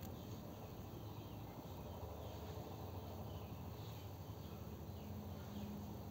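Faint steady background ambience: a low hum with scattered faint, short high chirps.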